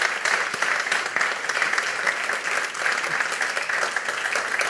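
Audience applauding: many hands clapping at once, holding a steady level.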